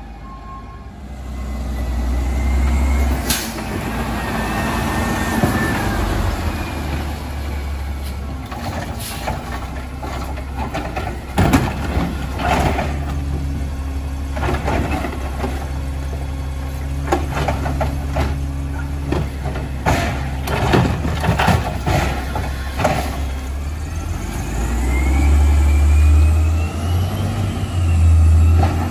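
Side-loader garbage truck with a natural-gas engine at the curb: the engine runs steadily while the automated arm lifts and tips recycling carts, with repeated sharp bangs and clattering as the cans hit the stops and the recyclables spill into the hopper. A short air hiss comes about three seconds in, and near the end the engine picks up with a rising whine as the truck pulls away.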